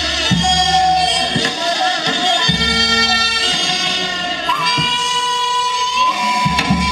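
Korean traditional ensemble music accompanying a seungmu dance: held, wavering melody notes from wind or bowed instruments over scattered drum strokes.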